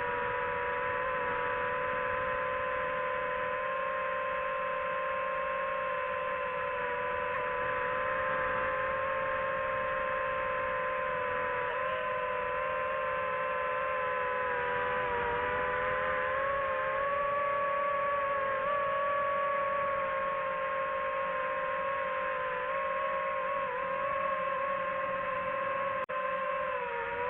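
DJI FPV drone's motors and propellers whining steadily, the pitch drifting slowly up and down as the throttle changes.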